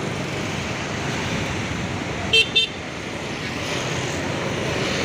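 Steady engine and traffic rumble, with a vehicle horn giving two short, high-pitched toots in quick succession about two and a half seconds in.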